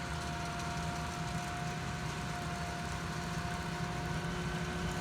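Potato-harvesting tractor and harvester engines running steadily: a continuous drone with a constant whine above it.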